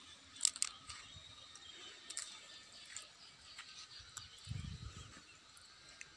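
Quiet outdoor ambience with a few short, sharp clicks near the start and about two seconds in, and a brief low rumble about four and a half seconds in.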